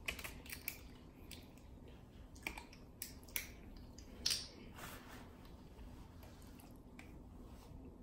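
Faint eating sounds: scattered small clicks and wet mouth smacks of people chewing seafood, with a brief crinkle about four seconds in.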